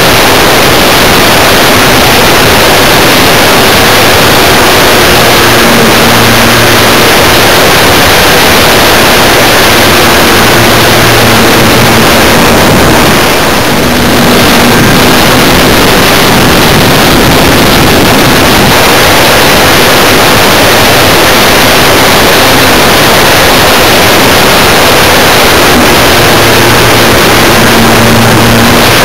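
Multiplex Space Scooter RC plane in flight, heard through its onboard camera's microphone: a loud, steady rush of wind and airflow over the mic. Faint hum from the Himax brushless outrunner motor and propeller comes and goes underneath.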